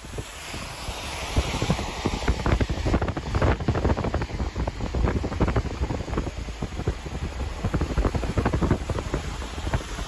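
Wind buffeting the microphone of a phone filming from a moving car, a gusty rushing with heavy low rumble and road noise. It swells over the first second or so and stays rough and uneven.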